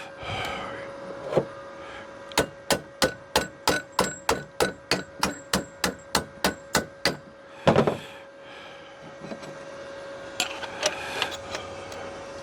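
Hammer blows on a sheet-steel patch piece, bending it to shape: an even run of sharp taps at about three a second for some five seconds, then one heavier blow.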